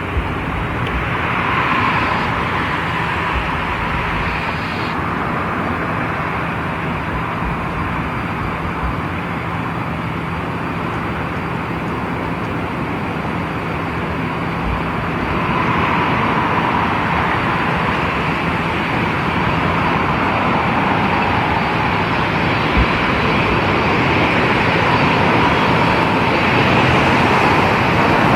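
Jet airliner engines, a steady rush with a faint wavering whine, growing louder about halfway through.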